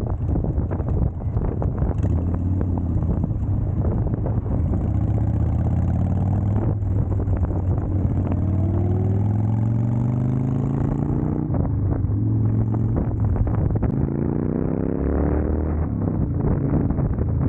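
Car engine heard from inside the cabin, accelerating: its note climbs in pitch for several seconds, drops back about two-thirds of the way in as it shifts gear, then climbs again steeply near the end, over a steady road rumble.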